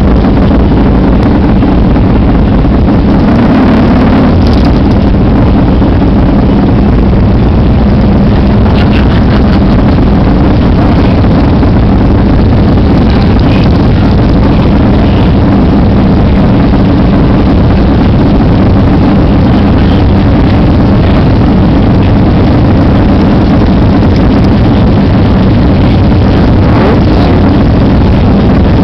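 Buell motorcycle engine running steadily and very loud at low street speed, heard up close from the bike being ridden.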